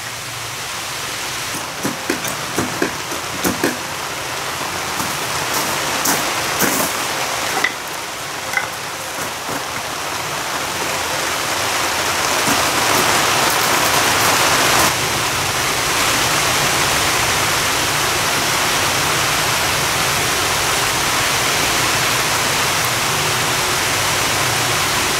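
A steady rushing noise, like rain on a roof, that swells over the first half and then holds steady. Light knocks and clicks sound in the first several seconds.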